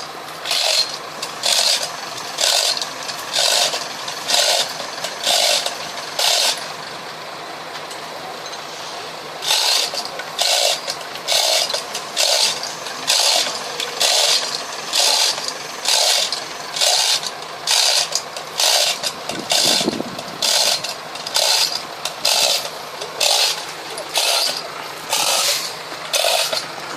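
Rhythmic scraping strokes, about three every two seconds, stopping for about three seconds a quarter of the way in, then starting again.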